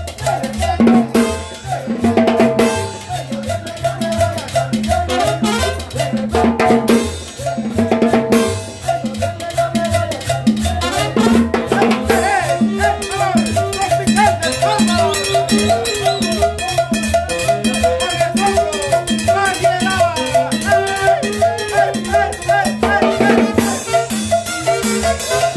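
Live tropical dance band playing salsa-style music: a repeating upright bass line and drums keep a steady beat under the melody.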